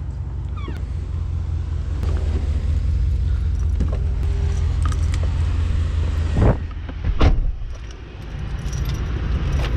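Keys jangling and footsteps under a steady rumble of wind on the camera microphone, then a Cadillac SUV's door is opened and shut: two loud knocks a little past the middle.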